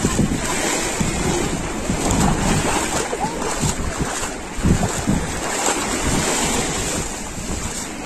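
Shallow sea water washing over sand at the shoreline while a bare foot splashes through it, wading. Wind buffets the microphone with low, irregular rumbling.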